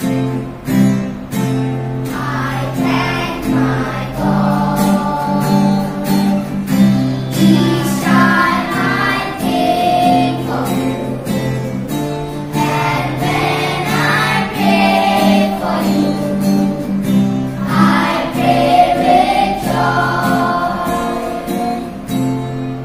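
A group of children singing a song together over instrumental accompaniment with a steady beat.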